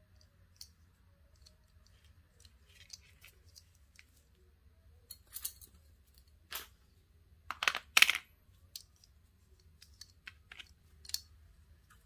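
Scattered light clicks and taps of hands handling a paracord bracelet, its plastic buckle and tools on a cutting mat. A cluster of louder hard plastic clacks comes just under eight seconds in, as a hand takes hold of a black torch lighter on the mat.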